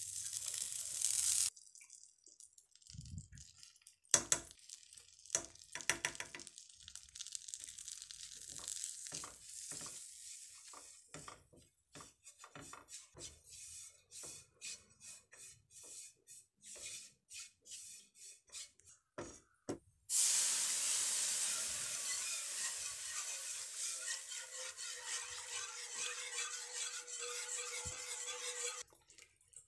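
Cooking in a nonstick frying pan: butter sizzles briefly at the start, then a silicone spatula scrapes and stirs flour in the butter in many short strokes. About two-thirds of the way in, a steady sizzling hiss starts as milk cooks into the hot butter-and-flour roux for white sauce, and it stops shortly before the end.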